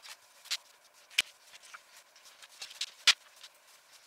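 Swimsuits being folded and handled by hand: faint rustling with a few sharp clicks and taps, the loudest about three seconds in.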